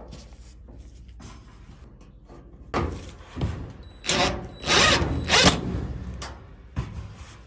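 Power drill-driver running in short bursts as it drives in dryer panel screws, with one longer run and a steady high whine about four seconds in.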